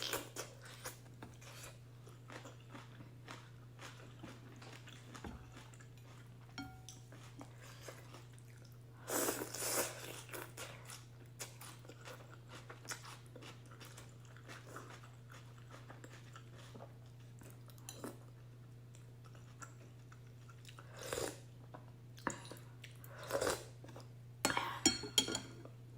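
Close-miked eating of beef and egg ramen: steady chewing and small wet mouth clicks over a low hum. There are a few louder bursts, one about nine seconds in and several near the end.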